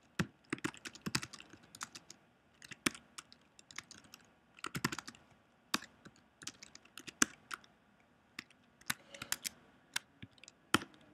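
Computer keyboard being typed on: sharp key clicks in short irregular runs with brief pauses between.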